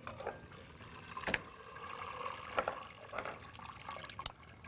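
Cooking water running and dripping back into the pot through the holes of a stainless-steel pasta insert full of cooked penne as it is lifted out, with a couple of sharp clinks.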